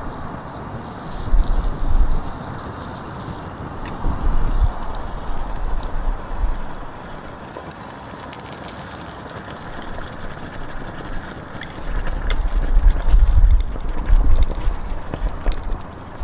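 Foam pattern burning off as molten aluminum is poured into a sand mold: a steady rushing fire noise with scattered faint clicks, and low rumbles that come and go.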